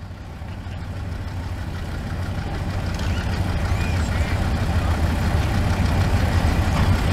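Vintage tractor engine idling, a steady low drone that grows gradually louder.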